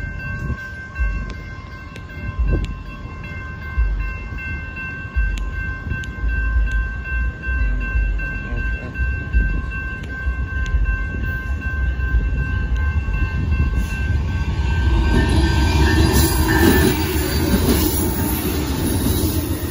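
A railroad crossing warning signal rings with a steady high tone while low gusts buffet the microphone. From about 15 s the Amtrak Texas Eagle's diesel locomotives arrive and pass over the crossing, and the rumble of engines and wheels swells to its loudest as they go by.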